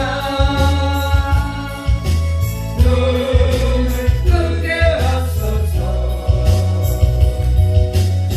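Gospel music with a band: a heavy bass line and a steady beat with jingling percussion under a held melody line.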